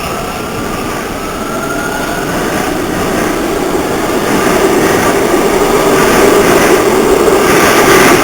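Budd-built rapid transit car running on the rails, heard from inside. A faint whine rises in pitch during the first few seconds while the running noise grows louder, as the train picks up speed.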